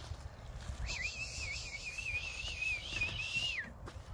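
A person whistling one long, wavering note that warbles slightly and drops at the end, starting about a second in and lasting about three seconds. It is a call to herd chickens back into the coop.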